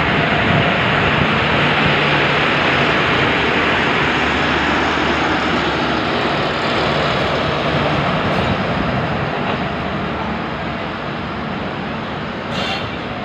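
Passenger coaches of a departing Pakistan Railways express train rolling past, a steady loud rush of wheels on rail that fades slightly as the last coach goes by near the end.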